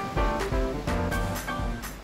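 Background music: a melody of pitched notes over a steady beat.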